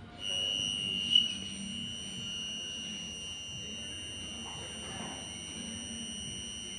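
Megger DLRO 200 low-resistance ohmmeter's warning buzzer sounding one steady high-pitched tone while the instrument drives a test current of about 230 amps through the sample, with a brief louder blip about a second in.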